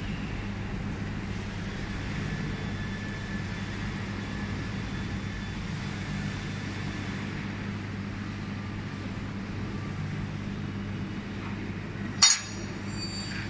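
Steady low hum of running machinery. Near the end, a single sharp metallic click as a digital caliper and a cut aluminium part are handled.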